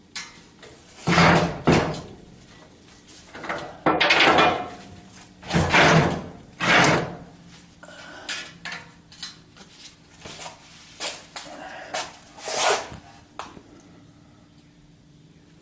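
Metal tools and parts knocking and clanking while a starter motor is being fitted and tightened under a car. There are several loud, irregular thunks, the loudest at about 1, 4, 6, 7 and 12.5 seconds in, with lighter taps between them.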